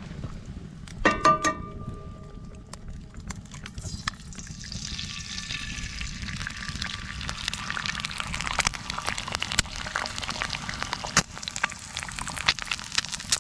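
Egg frying in hot oil in a cast-iron skillet over a campfire: a dense sizzle and crackle that builds from about four seconds in. About a second in there is a short ringing metal clank.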